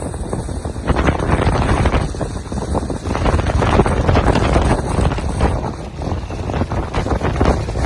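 Hurricane-force wind blowing hard in irregular gusts, buffeting the microphone with heavy wind noise and a deep rumble.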